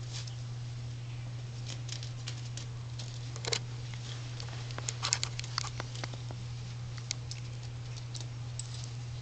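Yorkie puppy playing with a spring-mounted pom-pom cat toy on a wooden floor: scattered light clicks and taps of claws, the spring and the toy. The taps come thickest about three and a half seconds in and again about five seconds in, over a steady low hum.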